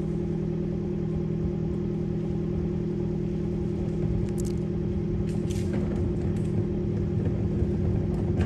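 Fiat 124 Abarth's 1.4-litre turbo four-cylinder idling steadily through a Good Win Racing 2.5-inch crosspipe and MagnaFlow System One exhaust with resonator. The note is a low, even drone, with a couple of brief faint hisses in the middle.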